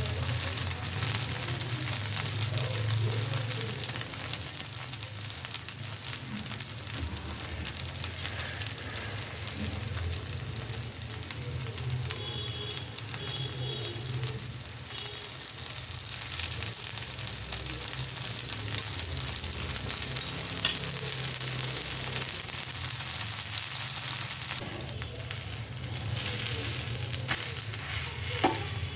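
Food sizzling in a hot pan while it is stirred, with scattered sharp clicks of a utensil against the pan. A steady low hum runs underneath.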